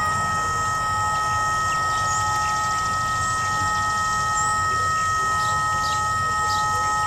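Whelen WPS-3016 electronic warning siren giving out a steady buzzing tone that does not rise or fall, instead of its normal test signal. This is a malfunction, which is guessed to come from the siren head being unable to rotate to its position.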